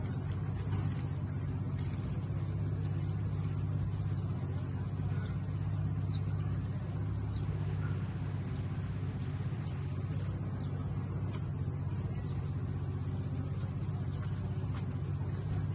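A steady low mechanical hum, like a motor or engine running, that stays even in pitch and level throughout.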